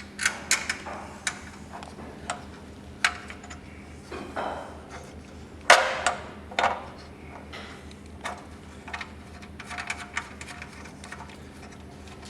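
Scattered metallic clicks and knocks of a bolt and nut being fitted through an aluminium motorcycle skid plate, the loudest about halfway, with a run of quicker, fainter ticks in the second half.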